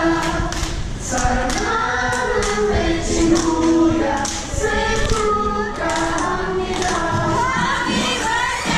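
A group of restaurant staff singing a birthday song together in unison, clapping along about twice a second.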